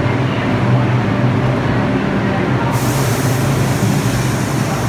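R62A subway train standing in a station, with a steady low hum and noise. About three seconds in, a high hiss joins it.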